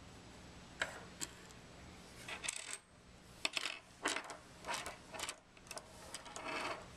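Metal parts of a disassembled sampler plunger (seal carriers, sleeve and spindle) clinking against one another and being set down on a wooden tabletop: an irregular string of light metallic clicks and taps, some briefly ringing.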